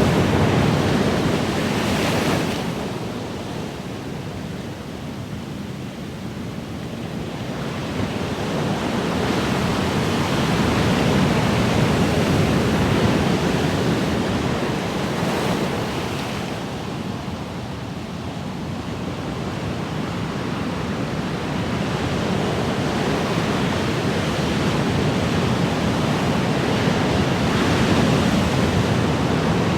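Ocean surf: waves washing in and drawing back, the rushing noise swelling and fading in slow surges about every ten to fifteen seconds.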